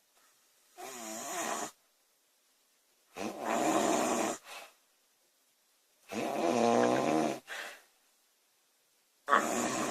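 A woman snoring: four loud snores about three seconds apart, each followed by a brief, shorter sound.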